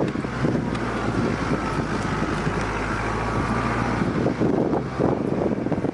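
Jeep Wrangler JKU engine running at low speed over rough off-road ground, with irregular knocks and rattles from the vehicle and a faint whine in the middle.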